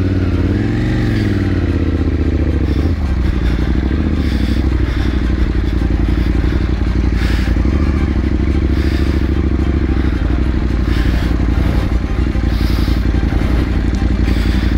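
KTM 790 Adventure Rally's parallel-twin engine running at low revs. It revs up briefly and falls back about a second in, then holds a steady note. Clatter and scraping come from the bike riding over a rough dirt track.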